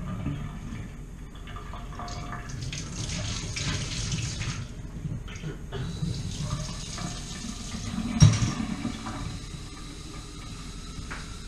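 Kitchen tap running into a stainless steel sink while dishes are washed by hand, with small clinks throughout and one loud knock about eight seconds in.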